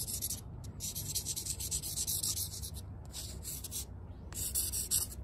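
Felt-tip marker scribbling across the ground steel face of an anvil to mark the high spots: a dry, hissy scratching in four bursts of quick strokes with short pauses between them.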